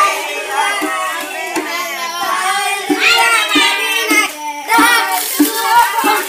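A group of children singing a rain-calling chant together, with sharp knocks scattered through it.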